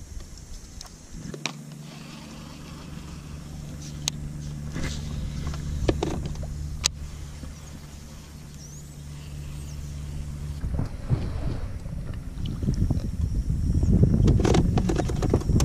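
Minn Kota electric trolling motor running with a steady low hum, starting about a second in and cutting off about two-thirds of the way through, with a few sharp clicks over it. A louder rushing noise builds near the end.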